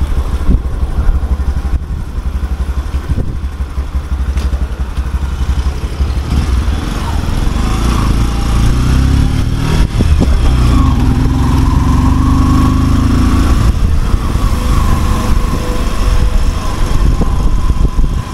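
Motorcycle engine running while the bike is ridden, with heavy wind rumble on the microphone. The engine note comes through more clearly for several seconds past the middle.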